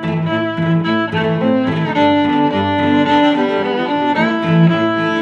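Background music played by bowed strings, violin and cello, with held notes in several parts at once.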